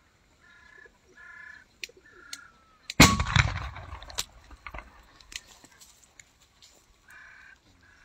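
Butane-fired bird-scaring gas cannon going off once about three seconds in: one loud bang that echoes and fades over about a second and a half. Short bird calls come three times before the bang and twice more near the end.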